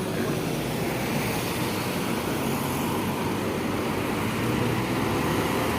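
Steady road traffic noise: a bus engine running as it goes by, with tyre and road noise, getting slightly louder toward the end.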